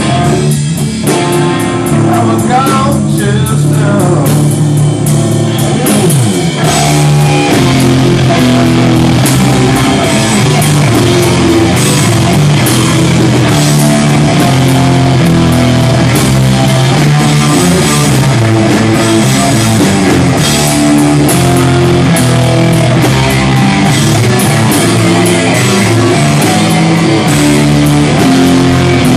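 Rock music with guitar and drums; the sound thickens into the full band about seven seconds in after a sparser opening.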